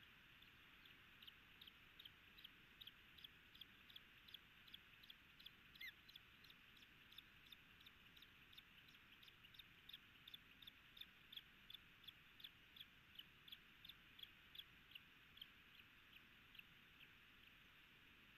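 Osprey calling: a long, even series of short, high chirps at about three a second, fading out near the end.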